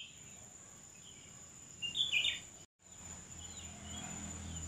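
Small bird chirping in short calls, loudest around two seconds in, over a faint steady high whine. The sound cuts out for a moment near three seconds.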